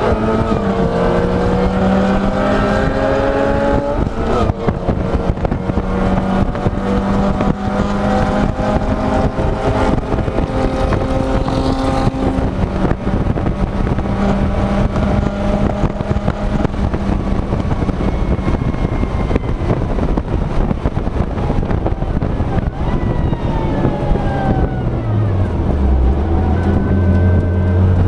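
Supercharged Mazda MX-5 Miata's four-cylinder engine running hard on a track lap, with steady wind and road noise. The engine note changes sharply about four seconds in, holds steady, then falls near the end as the car slows.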